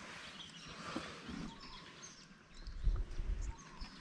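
Faint outdoor background with bird calls, a few small clicks, and a low rumble about three seconds in.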